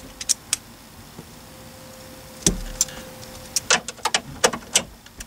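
Socket wrench clicking and tapping as the 7mm mounting bolts of a car stereo are tightened in the dash: scattered sharp clicks, a dull thump about halfway through, and a quicker run of clicks near the end.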